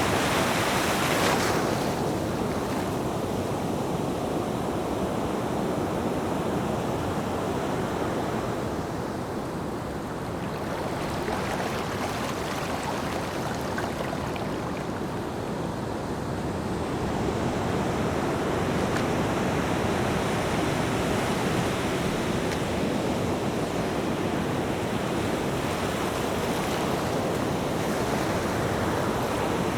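Ocean surf: a continuous wash of waves breaking and running up the shore. A bright crash fades within the first two seconds, the wash eases through the middle, and it builds again about two-thirds of the way in.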